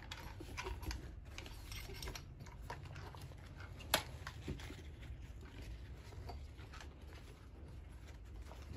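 Nylon rifle sling being handled and fitted to an airsoft rifle's stock: soft rustling of the webbing with scattered small clicks of the sling hardware against the stock, and one sharp click about four seconds in.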